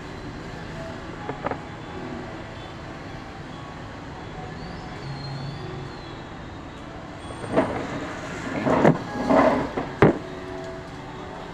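Steady background noise, with a faint click about a second and a half in and a cluster of sharp knocks and clatters between about 7.5 and 10 seconds.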